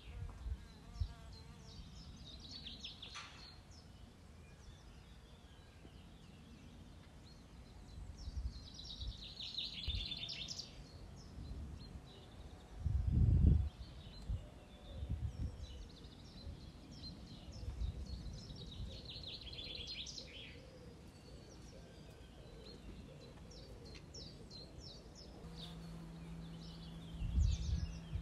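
Background ambience with birds chirping in a few short spells, over a low steady noise with scattered low rumbles and one louder low thump about halfway through.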